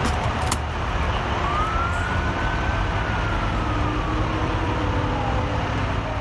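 Emergency vehicle siren wailing in one slow rise and fall of pitch over a steady low rumble.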